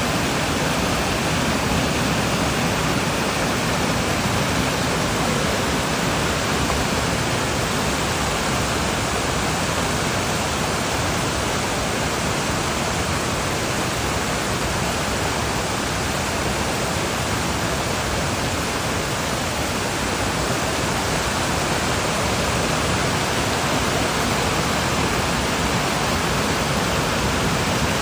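Mountain valley stream rushing, a steady, unbroken sound of running water.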